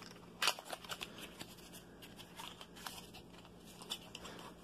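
Faint scattered taps and rustles of small cardboard ink boxes and packaging being handled, with one sharper tap about half a second in.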